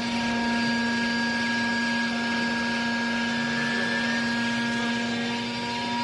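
Small vertical hydraulic baler's electric motor and hydraulic pump running steadily under load, a steady whine over a hiss, as the ram compresses used clothing into a bale.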